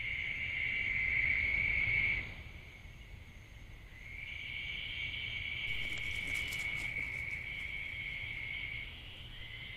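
Night insect chorus, crickets trilling steadily at a high pitch. It fades out about two seconds in and comes back about four seconds in, with a few faint ticks around the middle.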